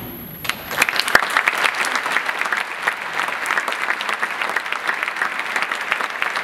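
Audience applause breaks out about half a second in, just after the last chord of a wind orchestra fades away, and keeps going steadily.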